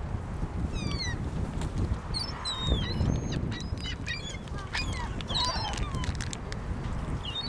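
A group of gulls calling: many short, high, squealing cries, several gliding downward, overlapping in bursts over a steady low rumble.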